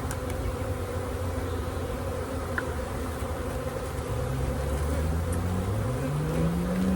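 Many honeybees from an opened package buzzing in a steady, dense hum. From about four seconds in, a lower hum slowly rises in pitch over the last few seconds.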